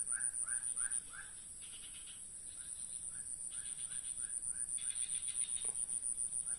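Swamp insects trilling high and steadily with a fast pulse. Over this, a small animal repeats a short call about three times a second in runs, with a few brief higher chirps between.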